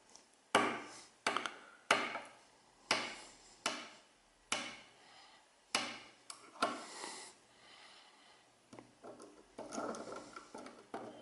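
Hard knocks, about ten of them, irregularly spaced over the first seven seconds and each ringing briefly: hard objects struck against each other or against a surface. Lighter clicking and rattling follows near the end.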